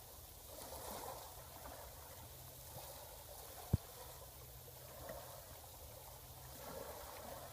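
Faint sea waves washing gently onto the shore, swelling and ebbing a few times, over a low steady rumble. A single sharp click a little past halfway.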